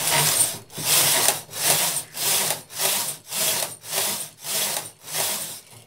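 Brother 950i knitting machine carriage pushed quickly back and forth across the needle bed, knitting rows of waste yarn: a rasping slide on each pass, about nine passes in quick succession, stopping near the end.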